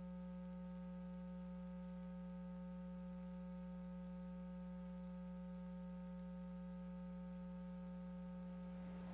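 Faint, steady electrical hum: one low tone with fainter higher tones above it, unchanging throughout, over a light hiss.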